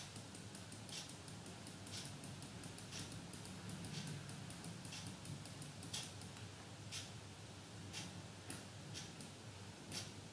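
Faint clock ticking about once a second, over a low steady hum.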